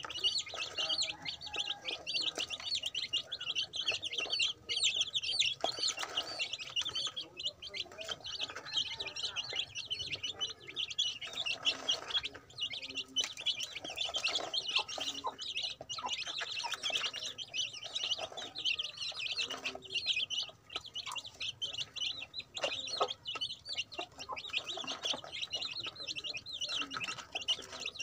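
A brood of chicks peeping nonstop, many high chirps overlapping, with scattered light taps as they peck at feed in a plastic tray.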